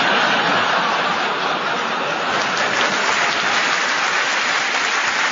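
Studio audience applauding, loud and steady.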